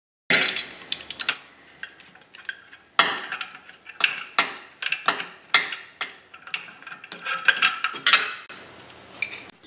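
Socket ratchet clicking and steel tools clinking as a 14mm nut and bolt are backed off an engine mount. Uneven sharp metallic clicks come one or two a second, starting a moment in.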